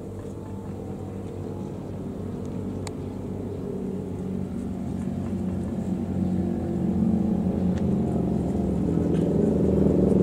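Diesel-electric locomotive at the head of a passenger train approaching, its engine drone growing steadily louder as it nears.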